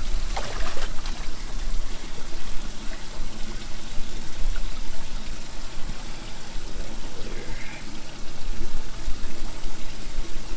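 Water trickling and splashing in a bass boat's livewell as bass are lifted out with a fish gripper, with a steady low rumble underneath.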